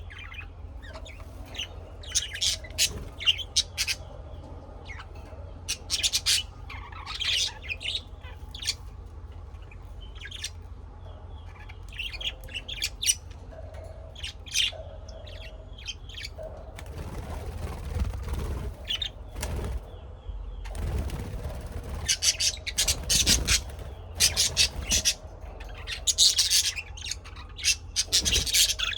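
Birds chirping in many short, sharp, repeated calls, with a few bursts of rustling noise, perhaps wing flaps, in the last third, over a steady low hum.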